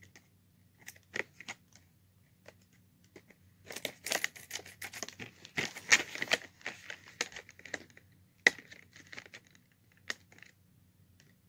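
Packaging being torn and crinkled open by hand, with scattered small handling clicks. The tearing and rustling is densest for about four seconds in the middle, with a sharp click after it.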